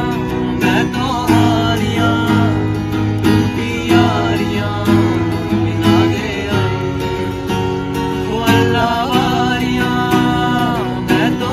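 Acoustic guitar strummed in steady chords while a man sings a slow melody over it.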